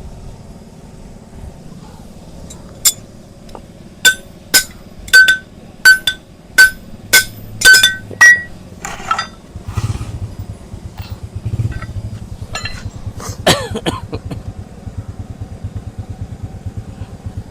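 A run of sharp, ringing metal clinks, about nine strikes, from steel hoof-trimming tools. About halfway through they give way to a low, fast-pulsing engine-like sound.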